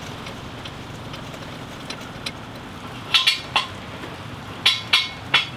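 Metal jack stand under the motorcycle's footpeg being extended and set: after a few seconds of low steady hum, about six sharp metallic clinks in two quick clusters.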